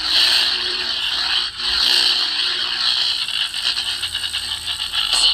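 Custom lightsaber's built-in speaker playing a sound font's hum with swing swells, harsh and buzzy with crackle. The owner suspects a low battery or the volume being set too high for the speaker.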